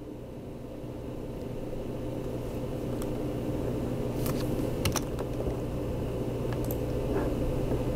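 A few sharp computer keyboard and mouse clicks, bunched about halfway through, over a steady low hum that slowly grows louder.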